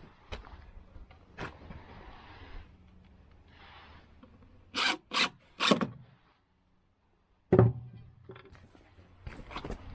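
Handling noises: soft rustling, then three short scraping strokes about five seconds in, a moment of dead silence, and a sharp knock, followed by more light clicks and rustling.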